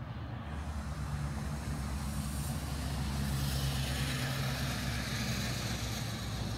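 A motor vehicle's engine running close by: a low, steady hum that gets louder over the first few seconds, with road hiss building in the second half.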